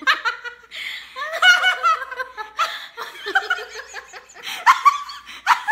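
Two women laughing together, loudly, in several peals with short breaths between.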